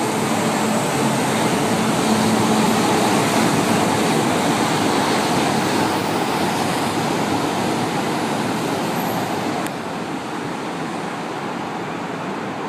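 São Paulo Metro train running at the station, a steady rolling rumble with a motor hum in the first few seconds. The level drops suddenly about ten seconds in.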